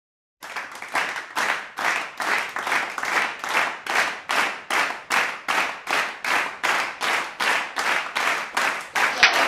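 An audience clapping together in a steady rhythm, a little over two claps a second, starting about half a second in.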